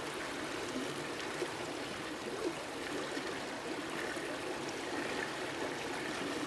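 Steady wash of creek water, with water swirling through a plastic gold pan as gravel and black sand are panned down; two faint ticks about a second apart.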